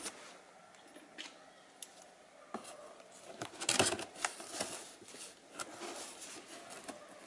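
Utility knife blade slitting packing tape on a cardboard box: faint scattered scrapes and clicks, busiest around the middle.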